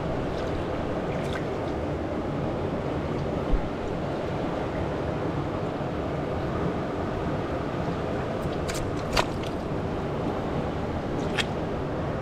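Steady rush of river water flowing over rocks, with a low thump about three and a half seconds in and a few sharp clicks near the end.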